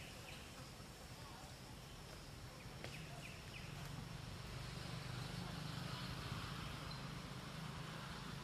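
Outdoor background: a low steady hum that swells through the middle, with a few faint high chirps about three seconds in.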